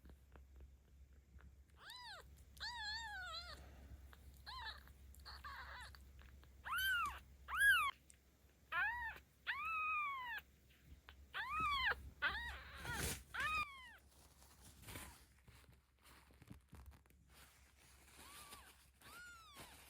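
A 17-day-old kitten meowing again and again: high, thin cries that each rise and fall in pitch, about a dozen in quick succession, then two fainter ones near the end.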